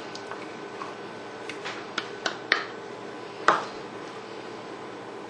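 A wooden spoon scraping sour cream out of a cup and spreading it, with a few sharp knocks of spoon and cup, the loudest about three and a half seconds in, over a faint steady hum.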